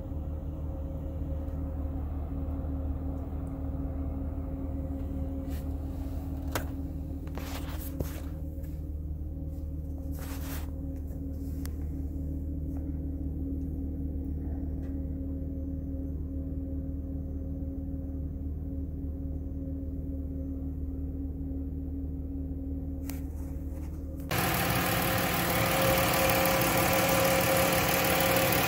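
A 2019 Ram ProMaster van's 3.6-litre V6 idling, a steady hum heard from inside the cab, carrying an unexplained under-hood noise that throws no check-engine codes. Near the end it turns suddenly louder and brighter, heard close up in the open engine bay.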